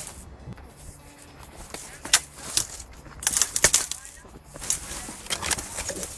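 Airsoft guns firing: scattered sharp cracks, single shots and a quick run of several in the middle.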